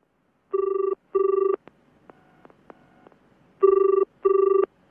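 A telephone ringing in the British double-ring pattern: two short rings, a pause of about two seconds, then two more short rings.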